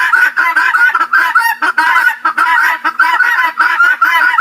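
Guinea fowl calling in a rapid, unbroken run of short repeated calls, several a second.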